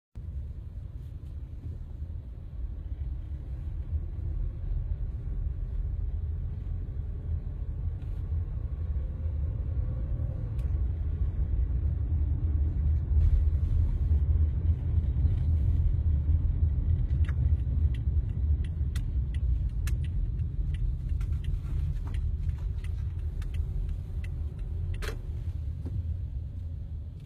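Low steady rumble of a car driving, heard from inside the cabin, with a faint engine tone that rises in pitch about eight to ten seconds in. Scattered light clicks come in the second half.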